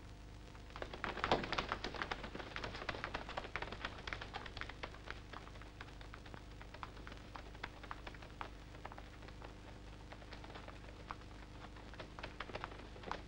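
Running footsteps of several boys on a paved street: a quick patter that sets in about a second in, is loudest for the next few seconds, then thins and fades as the runners move away. A faint steady hum lies underneath.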